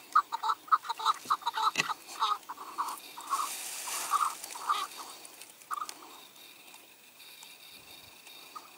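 Chukar partridge calling a rapid run of short clucking notes, about four a second. The notes slow, space out and fade away about six seconds in. A sharp click about two seconds in.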